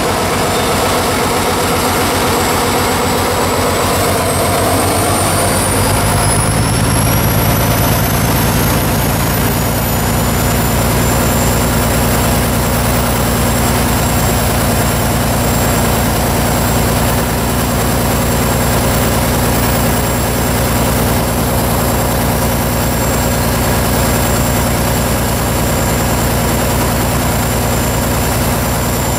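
Diesel engine of a ČKD T448p shunting locomotive running steadily. About six seconds in its low note grows heavier, and a high whine rises in pitch over the next few seconds and then holds steady.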